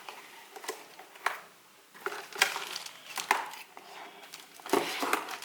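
Packaging being handled during a keyboard unboxing: irregular rustling and crinkling with sharp knocks and clatters, the loudest about a second in, near the middle and near the end.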